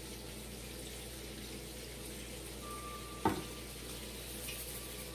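Faint steady hiss of room noise, with a single sharp knock a little over three seconds in as a pepper shaker is set down on the countertop.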